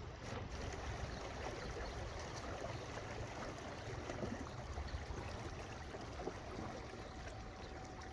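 Steady outdoor noise of wind and small wind-driven ripples on a pond, with a low rumble of wind on the microphone.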